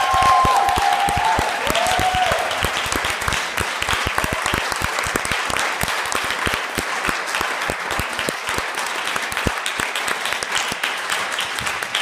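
Audience applauding, with a few voices cheering in the first couple of seconds; the clapping is dense and steady.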